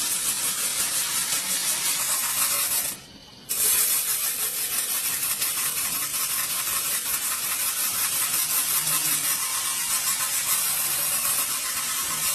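A steady, loud hiss, with a short break about three seconds in.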